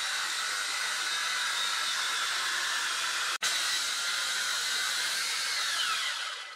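Handheld electric circular saw ripping lengthwise through a hardwood block: a steady, loud motor whine with cutting noise. It breaks off for an instant a little past halfway, and its pitch sags near the end before it stops.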